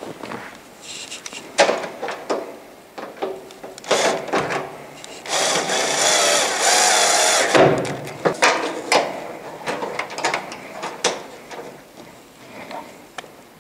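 Cordless drill with a Phillips bit running for about two seconds in the middle, driving a screw. Scattered clicks and knocks of parts being handled come before and after it.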